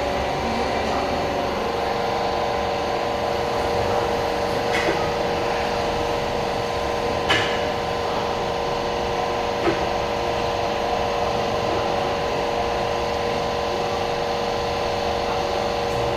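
Car accessories shop ambience: a steady machine hum with several constant tones over background noise, broken by a few short clicks or knocks about 5, 7 and 10 seconds in.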